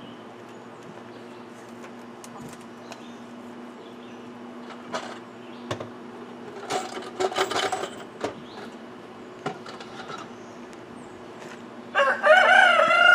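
Rooster crowing once near the end, a single long call that rises and then falls, the loudest sound here. Before it, a few scattered knocks and scuffles.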